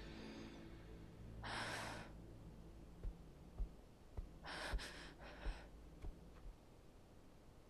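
A person sighs once about a second and a half in; then slow, soft footsteps, about seven, with a couple more short breaths in the middle as they come to a stop.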